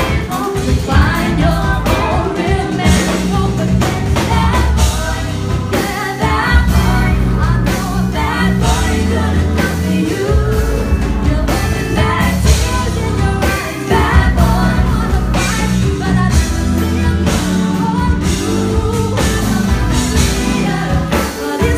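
Live band performance: a group of female vocalists singing together, backed by keyboard and electric guitar over a steady beat.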